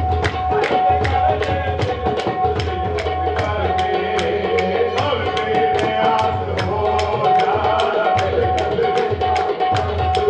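Qawwali music: hand drums keep a steady beat of about three sharp strokes a second over a held harmonium note.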